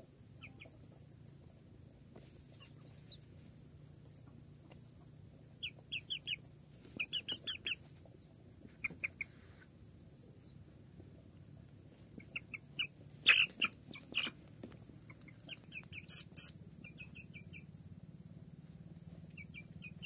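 Indian ringneck parakeet chick calling in short runs of quick, high chirps, three or four notes at a time, with a few louder calls about two-thirds of the way through.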